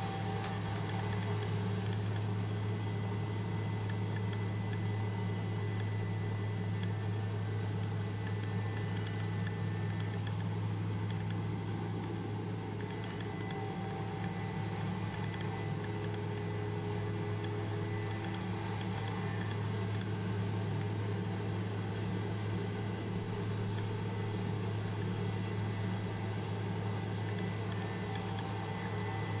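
Helicopter engine and rotor drone heard from inside the cabin during a sightseeing flight: a steady, even low hum over a constant rushing noise.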